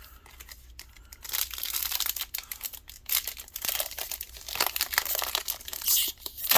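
Foil wrapper of a Yu-Gi-Oh! booster pack crinkling as it is torn open and handled, a dense crackle starting about a second in.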